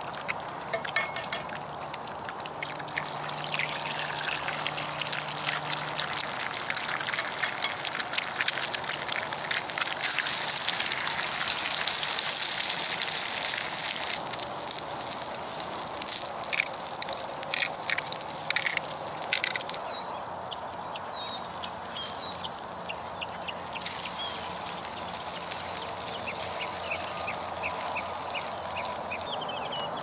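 Bacon and eggs sizzling and crackling in a skillet over a campfire, with scattered sharp pops. The sizzle is loudest for a few seconds near the middle.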